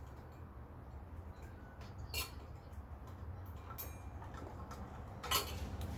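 Scattered light clicks and knocks from handling parts while a ceiling fan is taken down, the loudest about five seconds in, over a steady low hum.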